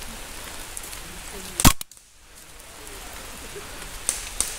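Steady hiss of rain, broken about one and a half seconds in by a single sharp airsoft shot crack, after which the sound drops out abruptly and fades back in. A couple of faint clicks follow near the end.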